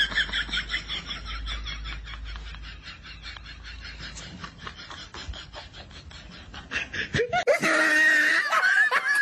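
Laughter: a fast run of high giggling that fades down over the first few seconds, then a louder burst of shrill laughing from about seven and a half seconds in.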